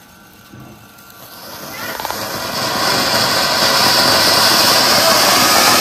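Bhuichakra (ground-spinner firecracker) catching after being lit: a hiss starts faint about a second in, builds over about two seconds and then holds as a loud, steady hiss.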